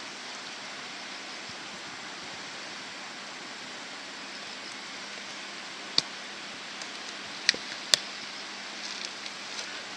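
Steady rushing of a flood-swollen river, with three sharp clicks about six, seven and a half and eight seconds in.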